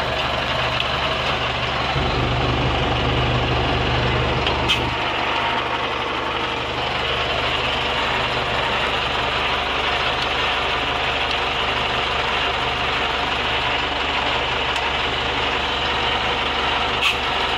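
Zetor 9540 tractor's four-cylinder diesel engine running steadily, heard from inside the cab. Its low drone swells for a few seconds about two seconds in, and there are two short clicks, one about five seconds in and one near the end.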